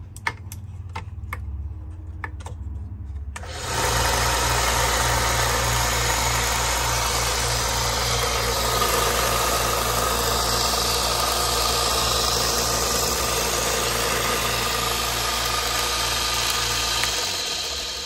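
1x30 benchtop belt sander switched on through its new rocker switch after a few light clicks: the motor comes up to speed about three and a half seconds in and runs steadily with a low hum and the hiss of the moving belt. Near the end it is switched off and starts to wind down. It is working again now that the faulty switch has been replaced.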